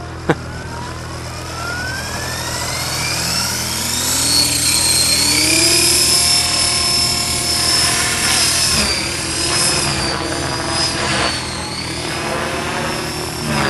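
Outrage 550 electric RC helicopter, running on 6S packs, spooling up and taking off. A sharp click comes right at the start, then a whine rises steadily in pitch over the first few seconds. It settles into a steady high-pitched whine that wavers as the helicopter climbs.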